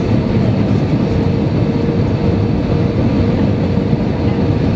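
Jet airliner cabin noise in flight: a steady, loud rumble of the engines and rushing air, heard from a seat beside the wing.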